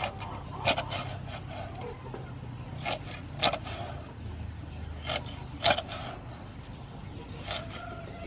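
Meat cleaver chopping a fish crosswise into pieces on a round wooden chopping block: about seven sharp knocks, mostly in pairs a couple of seconds apart.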